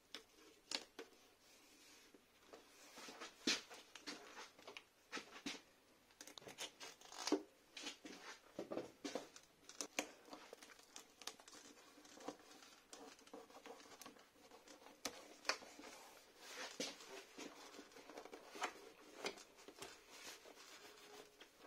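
White adhesive tape being pulled off and pressed onto a plastic RC car body, giving faint, irregular crackling and sticky tearing sounds, with a few sharper crackles along the way.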